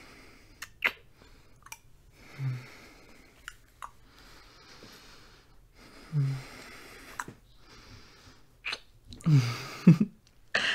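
A man breathing softly close to the microphone, with light kissing smacks and a few short, low hums. A longer, louder hum comes near the end.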